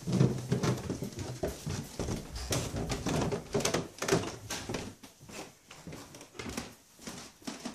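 Irregular footsteps and knocks of people going down wooden stairs indoors, mixed with rubbing and bumping from a handheld camera. It is busiest in the first five seconds and thins to scattered clicks after that.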